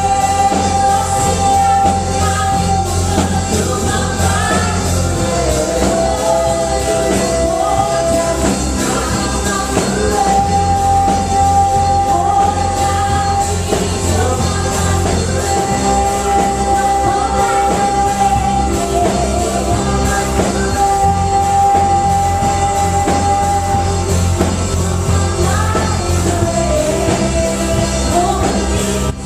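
Live worship band playing a song with singing, over a steady drum beat and a bass line that drops in and out by the phrase, with long held notes on top. Recorded through a small pocket camcorder's built-in microphone.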